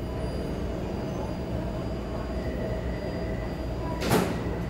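A Taipei Metro train standing at an underground platform, giving a steady low hum, with a short sharp hiss about four seconds in.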